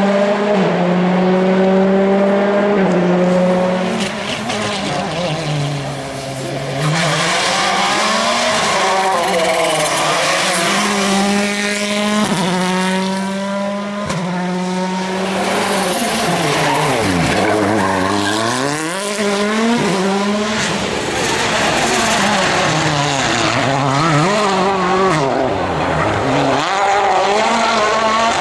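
2014 World Rally Cars, with 1.6-litre turbocharged four-cylinder engines, driven hard on a tarmac stage: the engine note climbs and drops repeatedly as the cars shift up, brake and shift down. The sound fades briefly about a fifth of the way in, then swells again.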